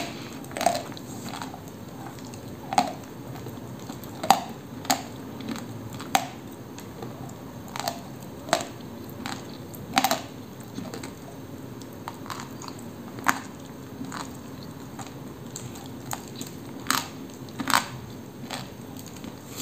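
Dry lump of Koksol edible clay being bitten and chewed: sharp, crisp crunches every second or two, with quieter chewing between them.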